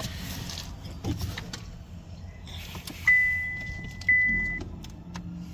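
2023 Chevy Malibu's electronic dashboard chime sounding twice, about a second apart, each tone fading out, with a few faint clicks, as a start attempt brings no cranking at all.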